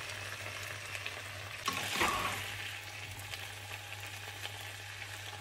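Chicken and vegetable stir fry sizzling and crackling in a granite-coated wok, with a louder scrape about two seconds in as a spatula scoops into the food.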